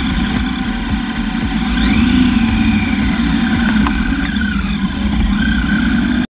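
Motorcycle engine running steadily amid city traffic, cutting off abruptly near the end.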